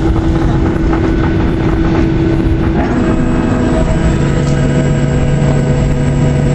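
Cabin noise of a Boeing 737-800 rolling on the ground after landing: a steady rumble with the hum of its CFM56 engines, which steps down to a lower pitch about three seconds in.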